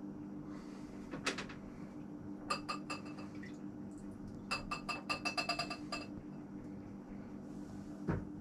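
Glassware clinking: a few sharp ringing chinks, then a quick run of rattling clinks for about a second and a half, and a dull knock near the end, over a steady low hum.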